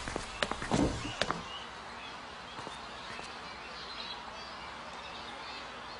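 A few sharp knocks or steps within the first second and a half, then a steady low background hiss with faint high chirps.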